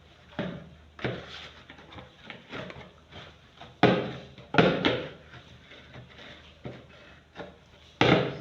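Pie dough being kneaded and worked by hand, with irregular knocks and thumps, loudest about four seconds in and again near the end.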